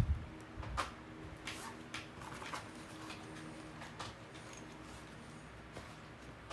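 Faint handling noises of hand tools during wood floor repair: a low thump at the start, then a few light clicks and short scrapes about every half second to a second, thinning out after about four seconds.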